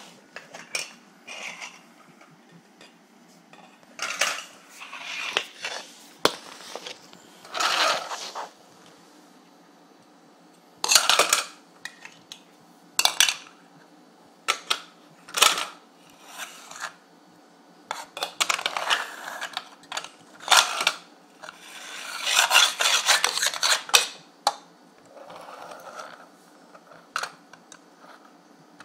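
Hard plastic Mega Bloks toy car parts being handled, clicking and clattering against each other and the wooden floor in irregular bursts, with a longer run of rattling a little after twenty seconds in.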